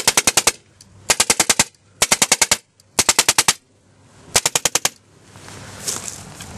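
Baikal MP-661K Drozd CO2 BB machine gun firing five rapid bursts of about six shots each, roughly a second apart, into a cardboard box.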